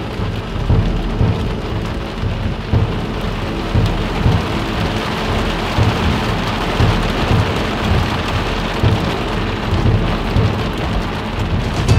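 Heavy rain pouring steadily onto a dirt road, with a low rumble of thunder underneath.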